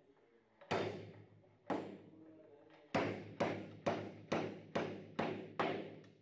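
Motorcycle front fork's inner tube being pumped sharply in and out of its aluminium outer leg, clacking metal on metal at each end of the stroke. Nine ringing knocks: two about a second apart, then seven in quick succession at about two per second.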